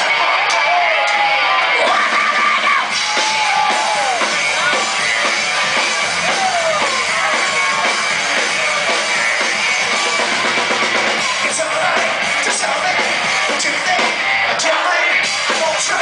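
Live rock band playing loud: drum kit, guitar and a lead singer with wavering, gliding vocal lines.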